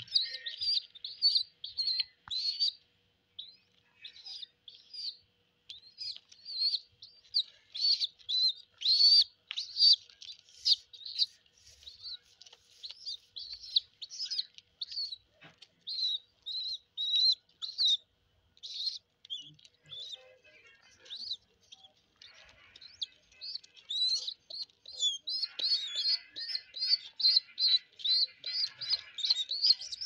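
Baby pigeons (squabs) peeping over and over, short high cheeps a few a second, begging as they are hand-fed seed. The calls thin out for a few seconds about two-thirds through, then pick up again.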